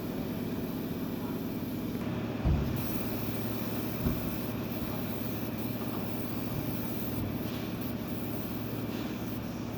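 Steady drone of industrial machinery with a low hum, broken by two short low thumps about two and a half and four seconds in.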